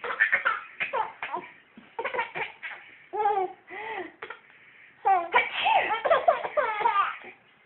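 Five-month-old baby laughing in short bursts at a sneeze, the laughs running together most continuously about five seconds in.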